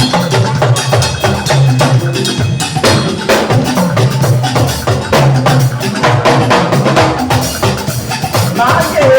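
Live band playing an upbeat groove: busy percussion with a wood-block click over a repeating bass line. A voice starts singing near the end.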